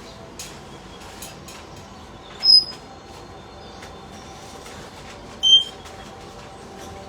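Two short, loud, high-pitched parrot calls about three seconds apart, over a steady background hum with faint scattered clicks.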